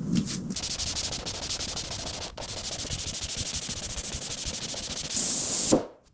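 Steady sanding: a dense, rapid scratching that grows louder for a moment and then cuts off sharply near the end.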